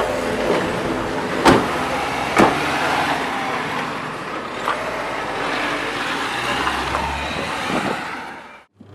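Renault Kangoo van running and driving off on a street, a steady vehicle noise with two sharp knocks about a second and a half and two and a half seconds in. The sound fades away just before the end.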